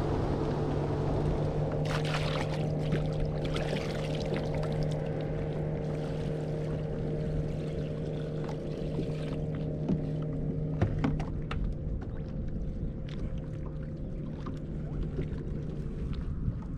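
A boat's engine running steadily nearby, a low hum over wind and water noise; the hum stops about eleven seconds in, with scattered light clicks throughout.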